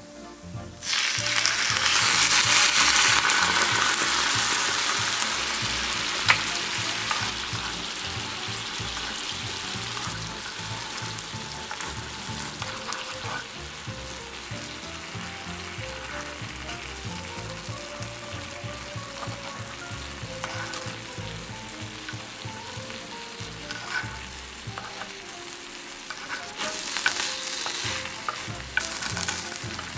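Food sizzling in hot oil in a frying pan: the sizzle starts suddenly and loudly about a second in, then settles to a steady fry, with a sharp click around six seconds and a louder sizzle again near the end.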